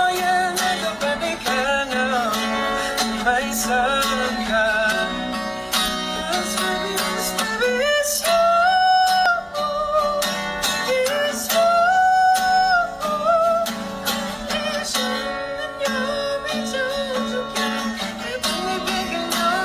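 A man singing to his own acoustic guitar: strummed chords under a sung melody, with long held notes about eight and twelve seconds in.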